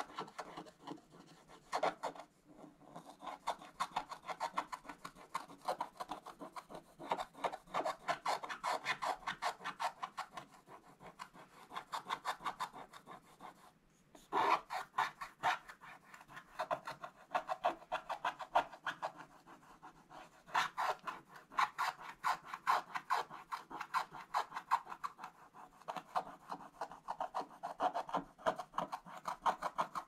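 A wooden scratch-art stylus scraping the black coating off a scratch-art paper page in rapid short strokes, pausing briefly about two seconds in and again near halfway.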